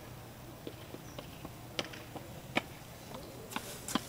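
Pendulum tower clock movement ticking: a string of sharp clicks at uneven intervals from its escapement and gear train, the loudest a little under two seconds in and again a moment later.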